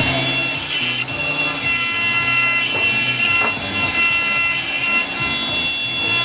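Milling machine's high-speed spindle whining steadily as the cutter works the part: a held, even drone of several tones over a hiss.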